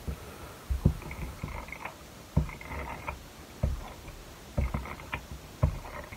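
Adhesive tape runner drawn in short strokes along the back of a cardstock border, with soft knocks and paper handling against the cutting mat.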